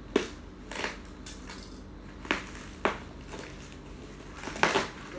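Plastic parcel wrapping and packing tape being cut with a kitchen knife and pulled open by hand: several short, sharp crackles and rips.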